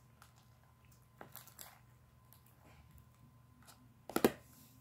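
Clear-glue slime being stretched and kneaded by hand, giving faint sticky clicks and squelches, with one louder crackle about four seconds in.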